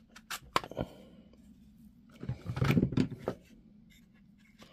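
Plastic clicks and rubbing as the battery pack's case is opened and the cell pack is pulled out of it. A few sharp clicks come at first, then a louder run of knocks and scraping a little past the middle.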